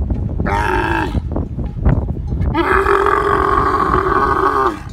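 Dromedary camel calling. There is a short call about half a second in, then one long, steady, level-pitched call from about two and a half seconds in that cuts off near the end.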